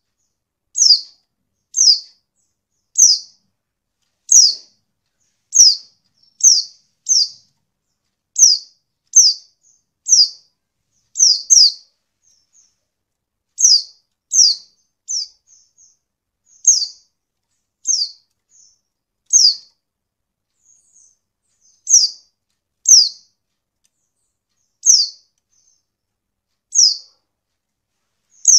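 Female white-eye (pleci) calling: a long series of short, high, downward-sliding call notes, roughly one a second and some in quick pairs, with faint short chips between them. It is the kind of call used as a lure to prompt lazy or untrained male white-eyes to answer and sing.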